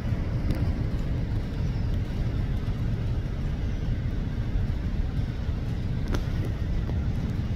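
Steady low rumble of a distant twin-engine jet airliner on final approach, with a faint click about six seconds in.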